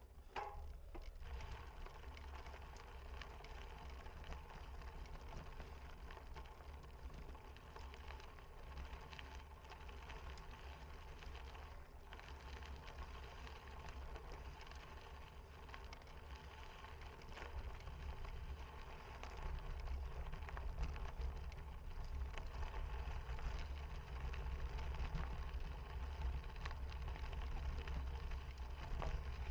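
Steady rumble and rattle of a cyclocross bicycle being ridden over the course, with wind on the microphone. It grows louder about two-thirds of the way through.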